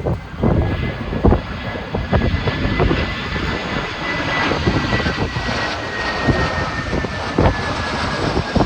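Airbus A320-214 jet airliner on landing approach: a steady high engine whine slowly falling in pitch, over strong wind buffeting the microphone.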